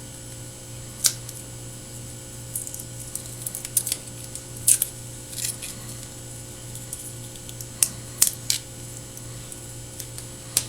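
Hand work on an HDMI ribbon cable's adhesive foil shield: scattered short, sharp crinkles and snips as the shield is picked and cut away, over a steady low hum.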